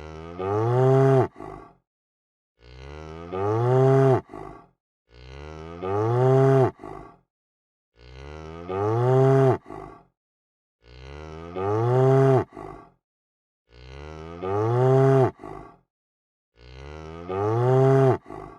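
A cow mooing: the same call repeats seven times, about one every two and a half seconds. Each moo rises in pitch, then levels off and ends abruptly.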